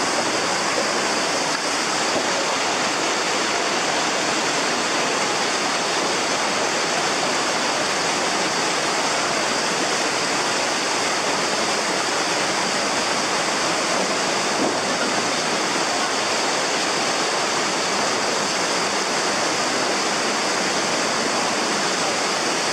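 Fast mountain stream rushing over rocks: a steady, loud, unbroken roar of water.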